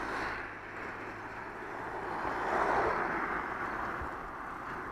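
Rushing road noise of wind and tyres heard from a moving bicycle, swelling to its loudest about halfway through, with a low hum in the first half.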